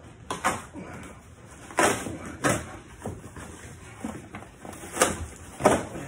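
Corrugated cardboard box being torn by hand in several short, loud rips, with rustling cardboard in between.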